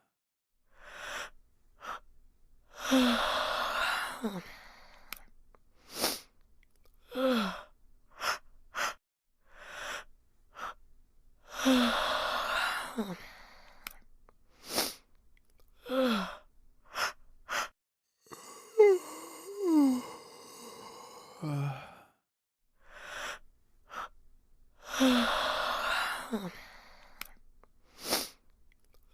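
Repeated human yawns: long breathy drawn-in breaths, each ending in a falling voiced sigh, with the biggest three about ten seconds apart. Shorter falling sighs and brief clicks or breaths come between them.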